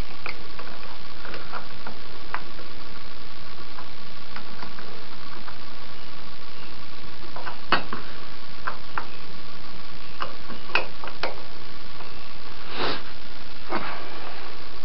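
Scattered light clicks and knocks of a metal light bracket and tube being handled and fitted together against a fibreglass boat, over a steady hiss. The clearest knock comes about eight seconds in, with a few more over the next several seconds.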